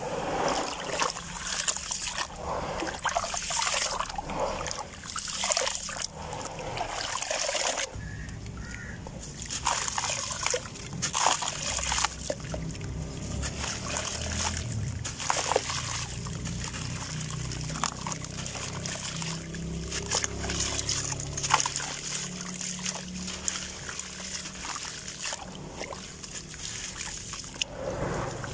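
Hands sloshing and squeezing through gritty muddy water in a basin, in repeated splashy strokes. About eight seconds in, the splashing gives way to a duller, lower rush as crumbled grainy gravel-sand (bajri) is poured into the water. Near the end the hands splash in the water again.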